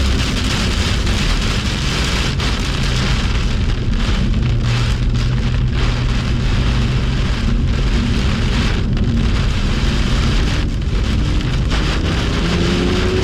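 Heavy rain and wet-road spray hissing loudly around a BMW M2 driving at speed on a soaked track, with the car's engine droning steadily and faintly underneath.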